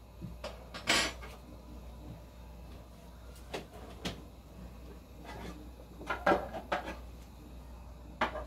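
Scattered knocks and clatters of household handling: a sharp knock about a second in, two more around the middle, a quick cluster a little after six seconds, and another near the end, over a steady low hum.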